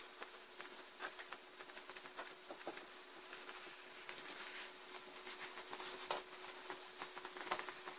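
Faint handling noise: small scattered clicks and rubs as test probes are held and pressed onto the connector of an LED TV backlight strip, over a faint steady hum.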